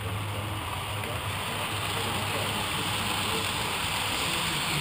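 HO-scale model freight train running past close by: a steady rushing noise of wheels rolling on the track that grows a little louder as the boxcars go by.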